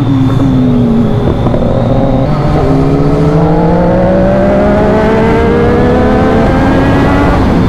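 Sport motorcycle engine heard from the rider's seat. The revs fall for about the first second, then the engine pulls again and its pitch climbs steadily for about five seconds under acceleration, with wind noise throughout.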